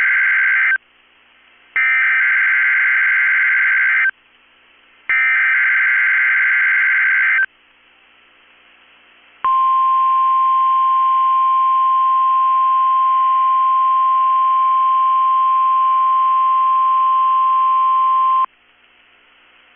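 NOAA Weather Radio SAME header: the end of one burst of warbling data tones, then two more identical bursts of about two and a half seconds each, a second apart. After a short pause comes the steady 1050 Hz warning alarm tone, held for about nine seconds and cut off sharply. It is the alert signal that opens the Required Weekly Test.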